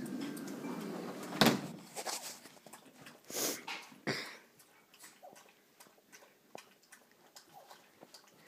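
Maltese dog lapping water: a string of quick, soft, wet clicks, several a second, with a sharp knock about one and a half seconds in and two louder bursts around three and a half and four seconds.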